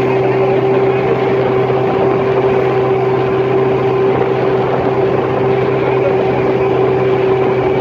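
Motorboat engine running steadily at a constant pitch, with a constant hum and a noisy wash of water and wind over it.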